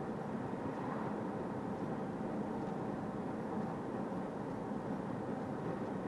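Steady tyre road noise on Bridgestone Regno tyres, heard inside a moving Toyota Corolla Touring Hybrid's cabin with the driver's window open about two centimetres.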